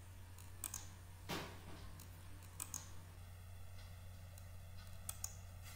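A few faint, spaced-out computer mouse clicks as line segments are drawn, over a low steady hum.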